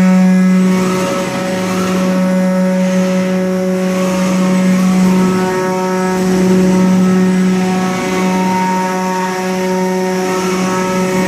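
5-axis CNC milling machine cutting, its spindle giving a loud, steady tone with a hiss of cutting noise that swells and eases every few seconds as the tool moves.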